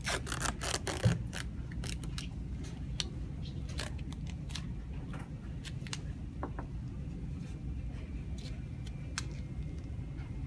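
Medical tape being pulled from the roll and torn: a quick ripping in the first second, then scattered small clicks and rustles as the strips are handled and pressed onto the wound dressing, over a steady low hum.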